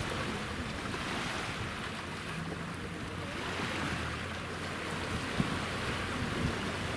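Sea waves washing in, a steady hiss that swells and eases slowly, with some wind on the microphone.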